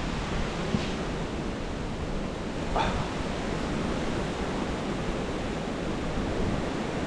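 Steady rushing outdoor noise, with a dog giving one short yelp about three seconds in.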